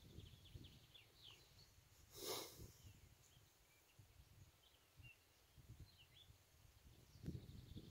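Near silence in open country: faint scattered birdsong chirps over a low wind rumble on the microphone, with one short puff of breathy noise about two seconds in.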